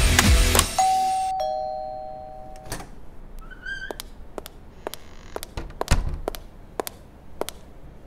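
A two-tone doorbell chime, a higher note then a lower one, about a second in. Then a short squeak and a run of sharp taps on a hard floor, roughly two a second.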